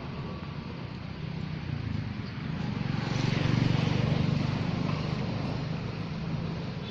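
A motor engine droning, growing louder about three seconds in and fading again as it passes.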